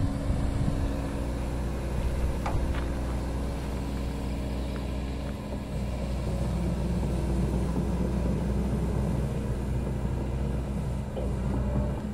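Excavator's diesel engine running steadily with a low rumble and a few faint clicks.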